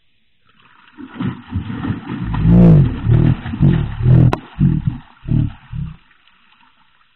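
A series of loud, deep roar-like calls. Each call rises and falls in pitch, and the calls get shorter and come in quicker grunts toward the end, dying away about a second before the end.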